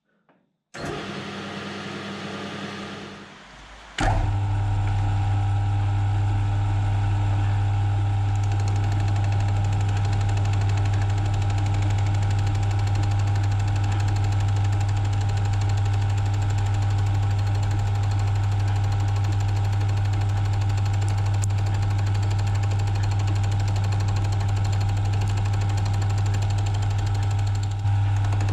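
Metal lathe switched on with a click about four seconds in, then running steadily with a strong low mains-motor hum; a quieter machine sound comes just before it.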